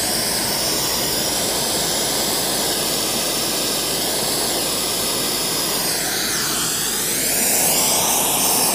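Propane-butane and oxygen torch burning with a steady rushing hiss while it heats a flux-and-charcoal mix on wood. Its tone shifts about six seconds in, and it grows a little louder near the end.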